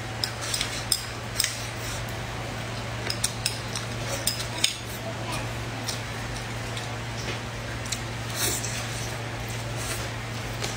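Chopsticks clicking and scraping on a ceramic plate while braised fish is eaten, with scattered sharp clicks in small clusters over a steady low hum.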